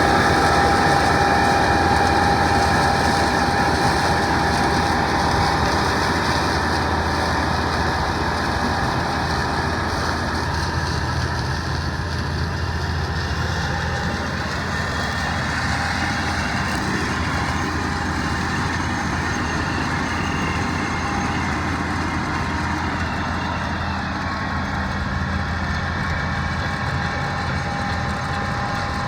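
Combine harvester running steadily as it picks soybeans. It eases down in loudness over the first ten seconds or so, then holds even.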